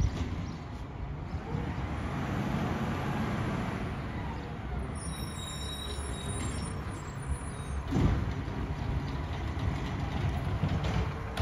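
Mack MRU refuse truck's engine running as it rolls up and stops, with a hiss of air brakes. About eight seconds in there is a sharp clank as the McNeilus ZR automated side arm grabs a recycling cart and begins lifting it.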